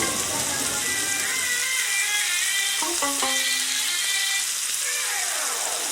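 Food frying in hot oil, sizzling with a steady hiss, with a few light clinks about three seconds in and faint music underneath.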